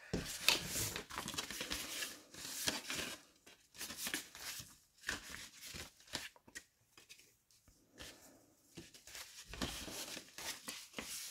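Pink cardstock being handled and folded by hand: irregular paper rustling and sliding, with a quieter stretch about two-thirds of the way through.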